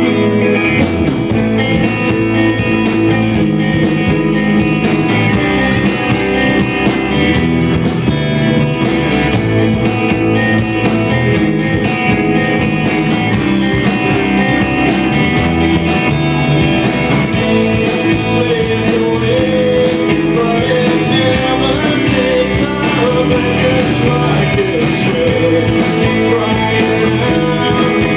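A live rock band playing loud and steady, with electric guitars to the fore.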